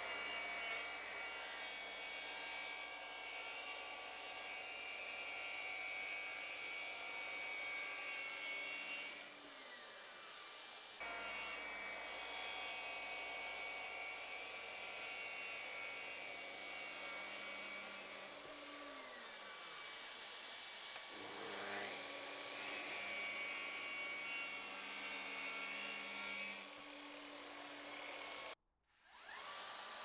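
Makita plunge track saw cutting plywood along its guide rail, with a small homemade battery-powered vacuum cleaner running as its dust extractor. The motor whine falls in pitch as the saw spins down about nine seconds in and again around eighteen to twenty seconds. Near the end the sound cuts off abruptly for a moment.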